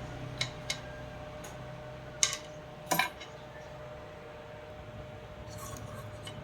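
Small hard objects being handled: a scattering of sharp clicks and clinks, the loudest two about two and three seconds in. Under them runs a faint steady hum.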